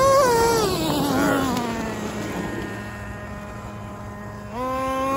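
Traxxas T-Maxx 2.5 nitro RC truck's small two-stroke glow engine at high revs, dropping away to a steady idle for a couple of seconds, then revved up sharply again near the end.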